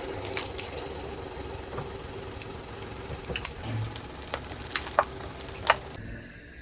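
Carbonated soda fizzing and splashing, with scattered sharp crackles and clicks.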